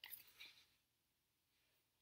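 Near silence: room tone, with a faint short noise in the first half second.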